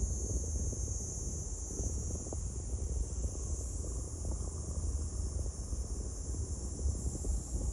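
Wind rumbling on the microphone, with a steady high chirring of insects in the grass going on throughout.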